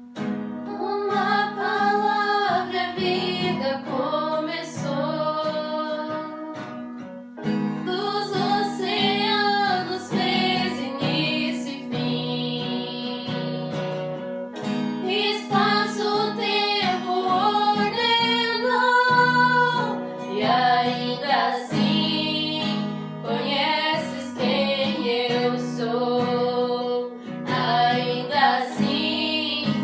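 Female singing over acoustic guitar, a song sung in sung phrases with short breaks between them.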